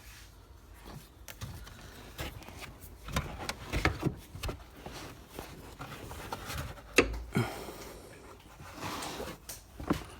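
Scattered clicks and knocks of tools and metal parts being handled during a shock absorber fitting, with the sharpest knock about seven seconds in and a short rustle near the end.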